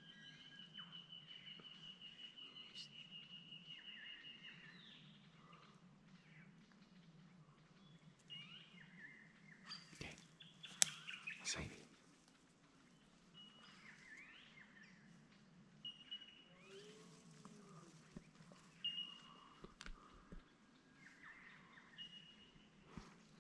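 Wild birds calling in the bush: a rapid, even trill for the first four seconds or so, then scattered short chirps and whistles. A few sharp clicks and knocks come in the middle and are the loudest sounds.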